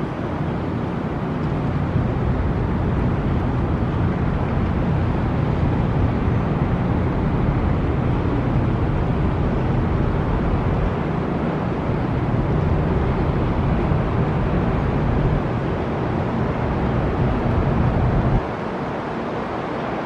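Steady low machine rumble with a hiss over it; the deepest part drops away suddenly near the end.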